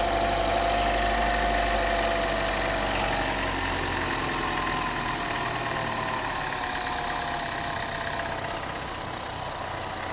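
Chevy Trax/Cruze four-cylinder engine idling steadily and evenly, the misfire gone after a temporary repair to a corroded wire. There is a steady hum with a tone that drifts slightly lower partway through.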